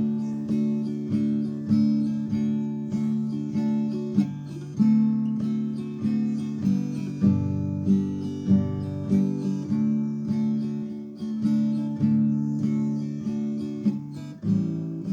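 Acoustic guitar strummed in a steady rhythm, about two strums a second: an instrumental break in a country song, with no singing.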